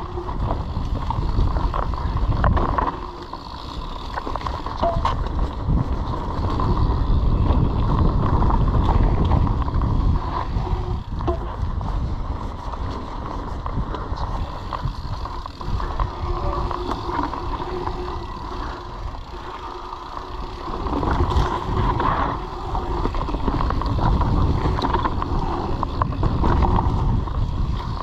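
Wind buffeting the microphone of a chest-mounted camera on a mountain bike during a fast downhill ride, with the knobby tyres rolling over a leaf-covered dirt trail and the bike rattling over bumps. The rush eases twice where the rider slows, then builds again.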